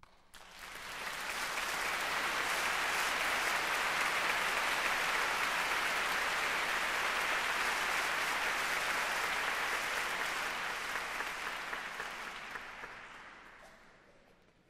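Audience applause that breaks out all at once, swells to full strength within about two seconds, holds steady, then dies away near the end.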